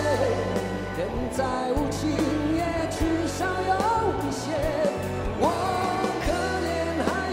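Live pop-rock ballad: a male lead voice singing a Mandarin song over a band with drums.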